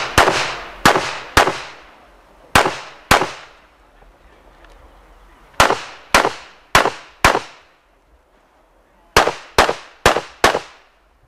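Rapid pistol shots from a 9 mm Smith & Wesson M&P9 Pro, about thirteen in all, fired in quick strings of pairs about half a second apart, with pauses of one to two seconds between strings. Each shot is a sharp crack with a short echo.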